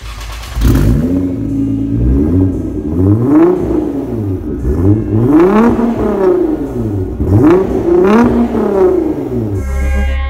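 Nissan GT-R R35's twin-turbo V6 through a Cobb aftermarket exhaust, revved repeatedly while stationary, the pitch rising and falling several times. Music comes in near the end.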